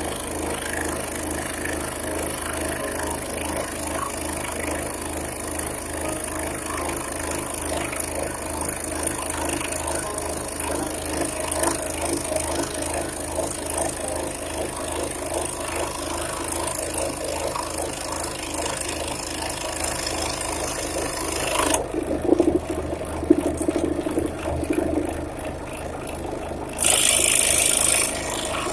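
Scroll saw running, its reciprocating blade cutting through scrap wood with a steady, rapid chatter. About three quarters through the sound changes, and near the end a louder hiss lasts about a second.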